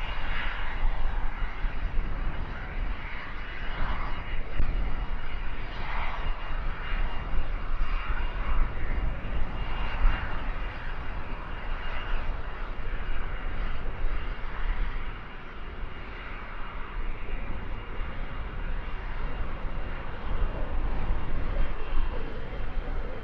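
Cessna 560XL Citation XLS business jet's twin turbofans at takeoff power: a rushing roar with a steady high whine over it. Gusty wind buffets the microphone underneath.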